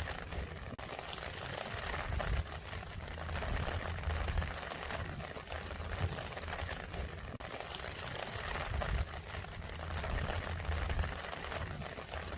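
Rain falling steadily, a dense patter of drops, with a low rumble underneath.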